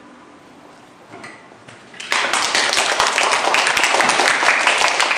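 A classroom of schoolchildren clapping, starting suddenly about two seconds in after a short hush.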